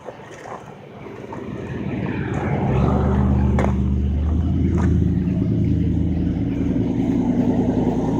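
A car engine running, growing louder over the first three seconds and then holding steady, with a couple of faint knocks in the middle.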